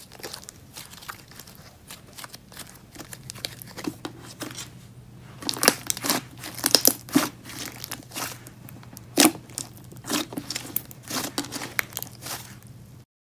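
Thick, fluffy puff slime being squished and stretched by hand, giving irregular sticky pops and crackles that grow busier partway through. The sound cuts off suddenly near the end.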